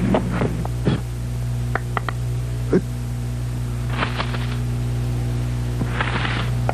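Steady low electrical hum on an old 8mm film soundtrack, with scattered clicks and two short hissy bursts about four and six seconds in.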